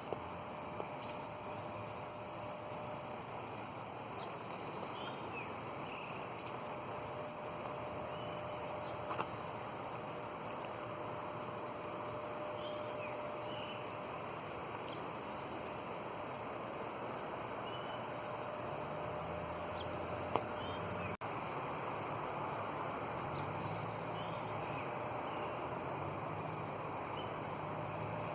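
Crickets or similar insects trilling in one continuous high-pitched drone, with short, faint bird chirps scattered over it. The sound briefly drops out a little over two-thirds of the way through.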